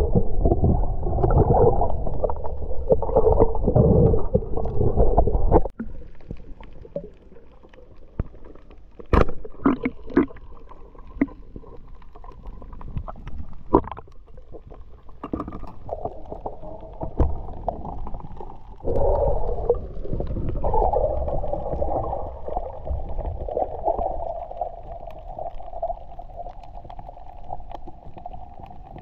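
Underwater sound through a submerged action camera: a muffled rumble of water and movement that cuts off suddenly about six seconds in, then a quieter stretch with a few sharp clicks, before the rumble comes back with a steady drone through the second half.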